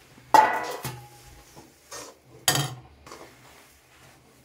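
Metal spatula clanking against a metal kadhai while stirring roasted sesame seeds into thick jaggery syrup. A few sharp clanks with short ringing, the loudest about a third of a second in and again about two and a half seconds in.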